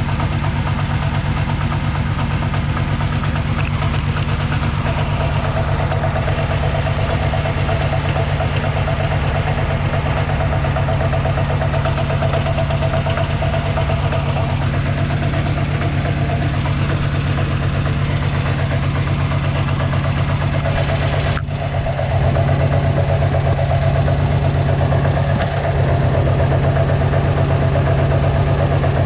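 Subaru WRX turbocharged flat-four engine idling steadily with an even, rapid pulse. The engine is shaking excessively, which the owner suspects comes from worn stock motor mounts. About two-thirds of the way through there is a brief dip, and then the engine sounds slightly louder.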